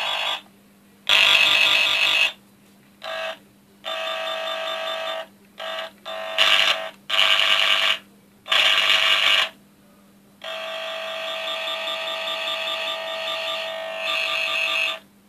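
Handheld cable tone-tracer probe sounding the signal generator's electronic tone as its tip is worked over the conductors of a foil-shielded multicore cable, hunting for a broken core. The tone cuts in and out in short stretches of varying loudness, then holds steady for the last few seconds.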